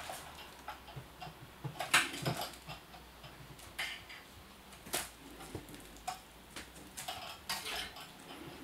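Irregular light clicks and taps from a kitten batting at a wire-wand toy's lure and pawing at a hard tabletop, with the sharpest tap about two seconds in and another near the middle.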